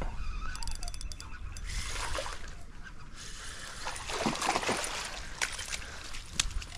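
Water splashing as a hooked smallmouth bass thrashes at the surface while being landed, in uneven bursts, with a run of quick ticks about a second in.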